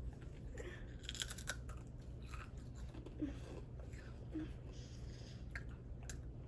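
A Ruffles potato chip being crunched and chewed: faint, irregular crisp crackles.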